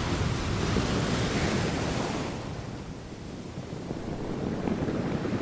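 Outdoor waterside ambience: a steady wash of waves and wind with no distinct events. It thins and dips about halfway through, then swells again near the end.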